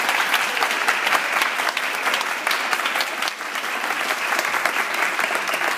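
Audience applauding: many people clapping steadily in a hall.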